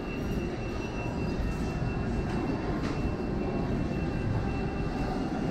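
Subway station ambience in a tiled underground passageway: a steady low rumble with a thin, steady high whine above it.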